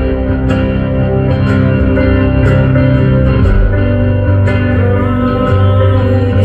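Live band playing an instrumental stretch of an indie-folk song: guitar over held chords and low notes, with a light tick about once a second.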